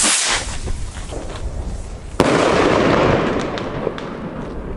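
ABA Phoenix-Flimmer mini salute rocket launching from a bottle with a rushing hiss, then about two seconds in the single sharp bang of its salute charge, which echoes for about a second. A few faint cracks follow.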